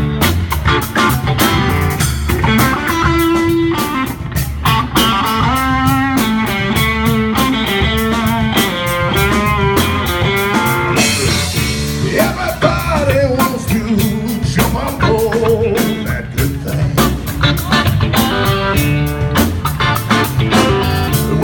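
Blues-rock band music with guitar over a steady drum-kit beat.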